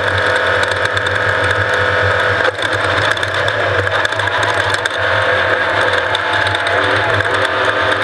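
Off-road race vehicle running, heard from on board: a steady engine drone under a dense clatter of rattling parts. The engine note changes abruptly about two and a half seconds in.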